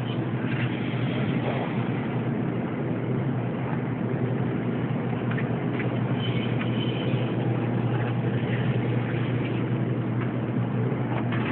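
1998 Lincoln Mark VIII's 4.6-litre V8 idling steadily, with a few faint clicks over it.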